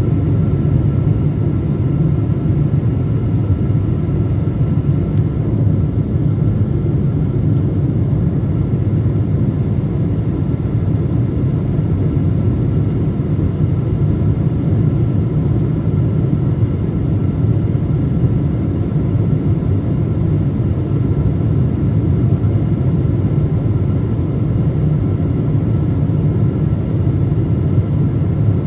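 Boeing 777-200 cabin noise heard from a window seat beside the wing on approach: a steady low rumble of the engines and rushing air, with a faint steady whine above it.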